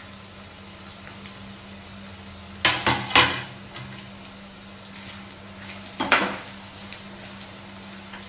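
Chopped onions frying in hot oil in a nonstick kadai, a steady sizzle, with a spatula knocking and scraping against the pan: a cluster of three clatters about two and a half seconds in and another about six seconds in. A faint steady low hum runs underneath.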